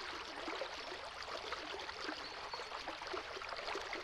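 A shallow river running over rocks: a steady burbling rush of water with many small splashes.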